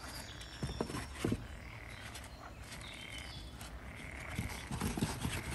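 Cardboard egg flats being handled and laid down on a stack of egg crates: a few soft knocks and scrapes, two about a second in and a cluster near the end.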